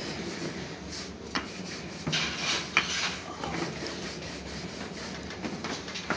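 Wooden rolling pin rolling out paratha dough on a stainless steel counter: a steady rubbing, with a few sharp knocks.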